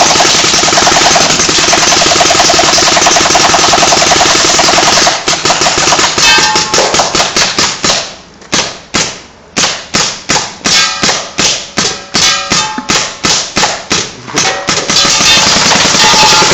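Shots fired at a laptop in quick succession, most likely from a paintball gun: first a dense, continuous rattle for about five seconds, then separate sharp shots two or three a second, becoming a dense rattle again near the end.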